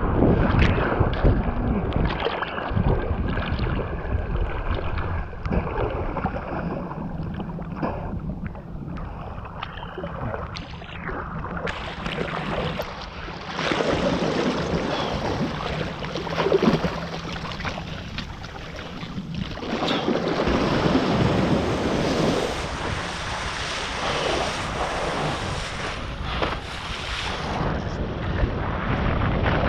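Wind buffeting the microphone over rushing, splashing water as a kite foil board rides across the water, rising and falling in gusts.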